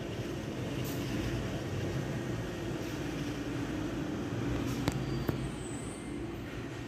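Steady low machine hum, with two short clicks about five seconds in.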